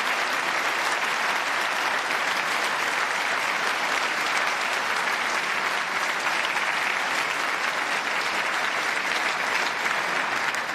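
Steady applause from a large audience of many people clapping.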